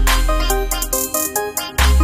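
Background electronic music with a heavy bass line, a short-note synth melody and a steady beat.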